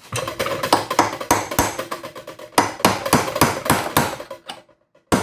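Rapid hammer blows, about four a second, on the end of a steel CV driveshaft to knock the inner joint's tripod off its splines; each strike rings metallically, with a short pause near the end.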